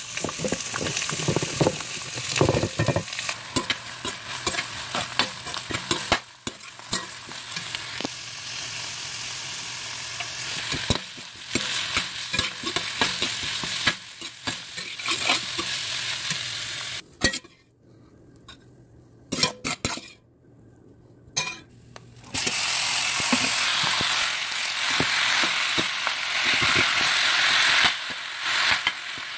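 Diced carrots, onions, sweet peppers and garlic sizzling in a hot pot while a spoon stirs them, with many clicks and scrapes of the spoon against the pot. Past the middle the sizzle falls away for a few seconds with only a few knocks, then comes back louder as ground beef fries and is stirred.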